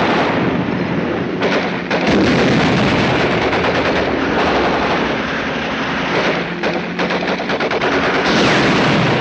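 Old film-soundtrack battle effects: sustained rapid machine-gun fire mixed with shell bursts, over the low steady drone of a tank engine.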